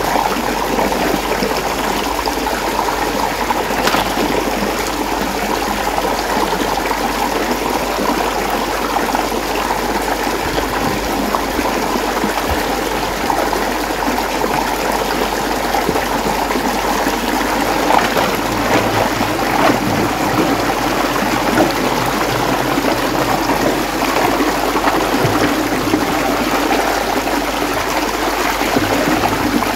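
Water running and swirling steadily in a whirlpool, with a few light knocks about four seconds in and again around eighteen and twenty seconds.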